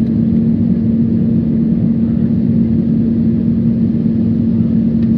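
Steady cabin noise of a jet airliner on its landing approach: engine and airflow noise with a constant low hum.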